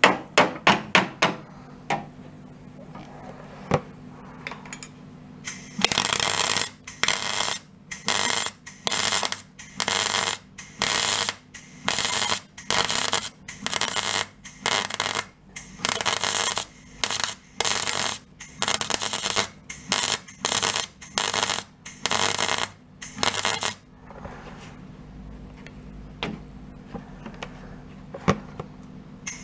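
MIG welder crackling in short bursts as a repair panel is welded onto a car's steel sill: a few quick zaps at the start, a quieter spell, then a long run of bursts about half a second each at roughly one a second, falling quieter again for the last few seconds.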